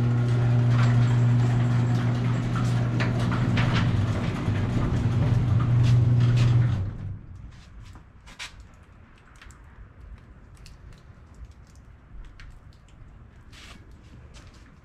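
A machine's steady low hum that cuts off suddenly about seven seconds in, followed by scattered faint clicks and taps.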